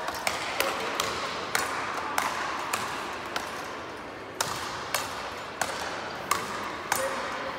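Speedball rackets striking the tethered ball in a fast doubles rally: a string of sharp hits, roughly two a second at uneven spacing.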